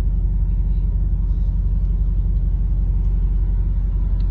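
Steady low rumble of a car heard from inside its cabin, its engine running while it waits in slow traffic.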